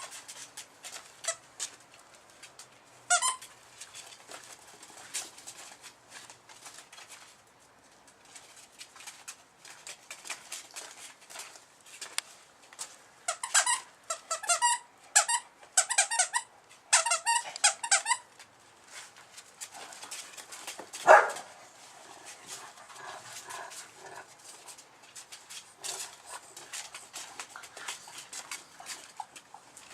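Eight-week-old bull-breed puppy snoring in its sleep: soft snuffles with high squeaky snores, a run of repeated squeaks midway and one louder single sound a few seconds later.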